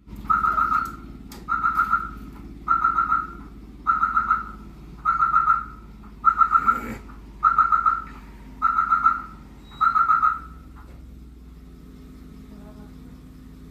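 An electronic alarm sounding nine identical warbling beeps, about one every 1.2 seconds, then stopping about ten seconds in.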